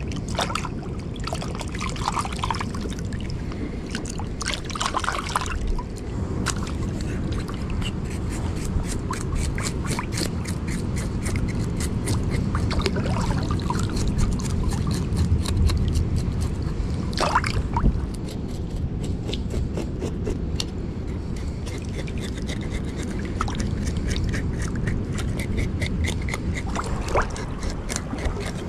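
Small knife scraping the scales off a freshly caught sea bream: a rapid run of short, scratchy strokes starting a few seconds in, over a steady low rumble and trickling water.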